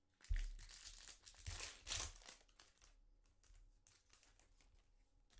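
Foil wrapper of a Topps Chrome trading-card pack being torn open and crinkled by hand. The tearing starts suddenly and is loudest in the first two seconds, then gives way to fainter crinkling.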